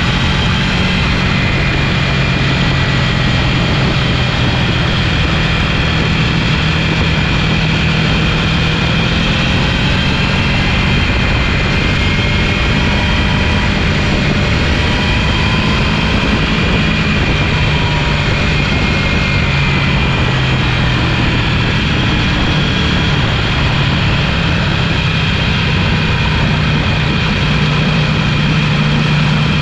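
Sport motorcycle riding at speed on a racetrack: the engine runs at a fairly steady pitch that drifts slowly up and down, under a steady rush of wind on the fairing-mounted camera.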